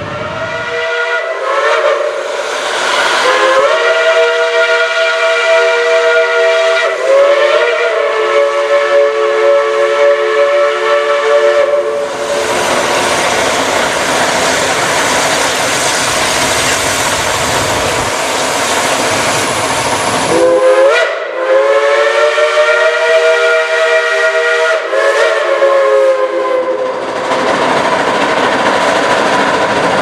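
Chime steam whistle of a Shay geared steam locomotive, No. 4, blowing two long blasts of several notes at once, the notes sliding up each time the whistle is opened further. The first blast lasts about eleven seconds, the second about six. Between and after them is the steady hiss of the working locomotive's steam.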